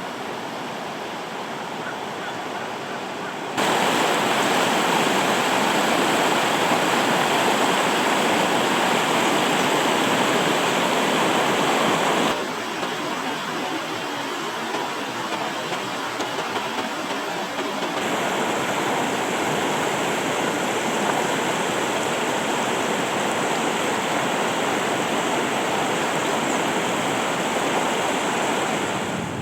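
Mountain stream water rushing over rocks, a steady noise that jumps abruptly in loudness three times, louder then softer then a little louder, as the shots change.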